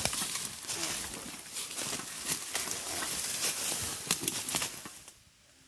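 Footsteps crunching through brush and dry leaves, with twigs cracking and vegetation rustling against clothing, in an irregular walking rhythm. The crunching gives way to quiet near the end.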